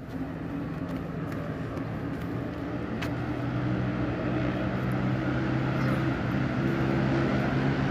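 A low engine drone, steady in pitch, growing gradually louder.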